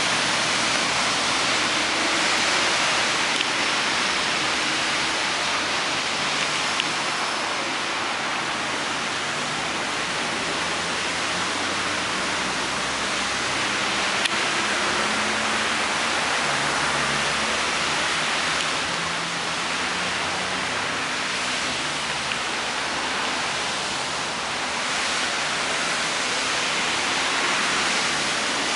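Steady hiss of rain falling, with slight swells in loudness.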